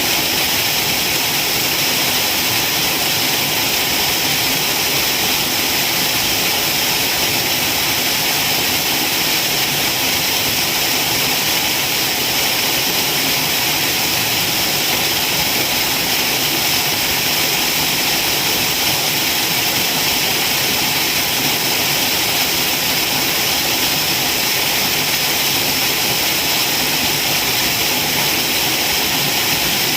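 Waterfall: falling water rushing in a loud, unbroken, steady hiss.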